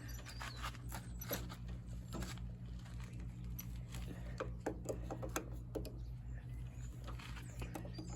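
Scattered metal clicks and light knocks of oil filter pliers gripping and working a riding mower's oil filter loose, over a steady low hum.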